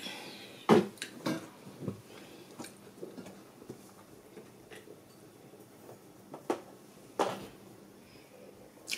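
Scattered light knocks and clicks of kitchen items being handled, likely while the salt is fetched: a cluster in the first two seconds, sparser ones after, and a sharper click near the end.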